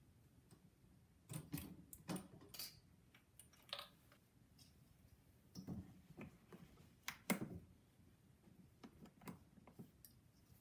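Faint, irregular clicks, knocks and short rustles of hands handling a guinea pig cage's wire grid panels and fleece bedding, the sharpest knock about seven seconds in.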